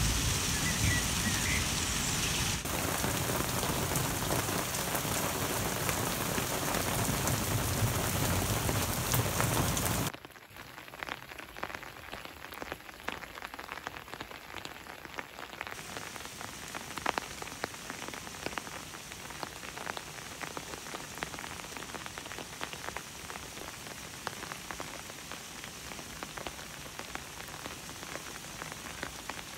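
Heavy rain making a loud, dense hiss, which cuts off abruptly about ten seconds in to lighter rain falling on open water, with individual drops ticking on the surface.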